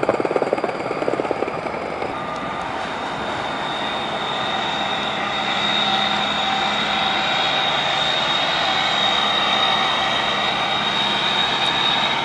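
Tugboat's diesel engines running steadily as it moves past close by: a drone with a high, thin whine over it that sets in about two seconds in, growing a little louder about halfway through.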